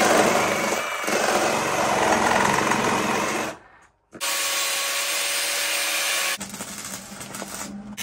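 Milwaukee cordless Sawzall reciprocating saw running and cutting into the zero-turn mower, in two runs with a short break about halfway. Near the end it gives way to a quieter crackle with a low hum: MIG welding.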